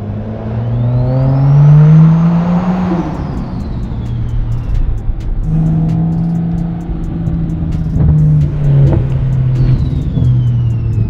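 Built BMW N55 straight-six with a big single Precision 6466 turbo accelerating: the engine note climbs for about three seconds with a turbo whistle rising over it, then the engine settles into a steady cruise while the whistle slowly falls away. A second, fainter turbo whistle falls away near the end.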